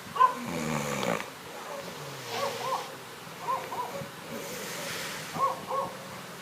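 A sleeping person snoring. A falling pitched snore opens it, then three breaths each carry a pair of short squeaky whistles.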